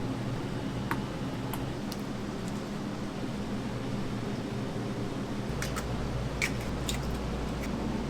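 Steady kitchen machinery hum, like an exhaust fan, with a few light clicks and clinks scattered through it.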